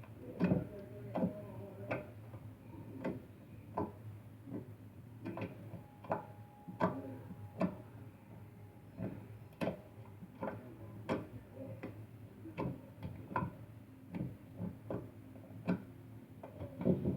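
A run of sharp, irregular clicks, about one or two a second, over a low steady hum.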